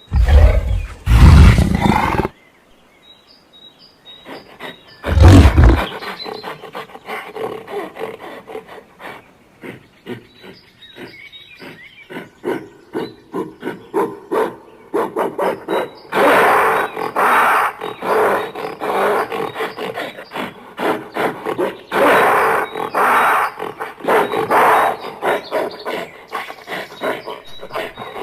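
Gorilla vocalizing: two loud roars in the first six seconds, then a long run of quick repeated calls that come in louder bursts.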